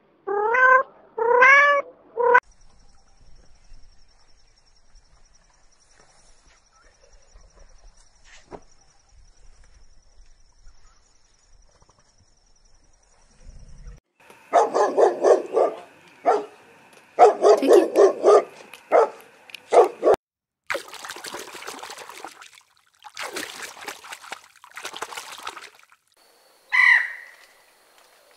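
A cat meowing twice at the start, then a long quiet stretch, then a dog barking in quick repeated bursts for several seconds. Several rough, noisy blasts follow, and a single harsh bird call comes near the end.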